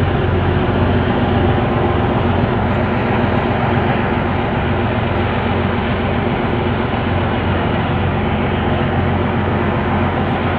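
A ferry's engines running with a steady low hum under an even rush of wind and the churning wake.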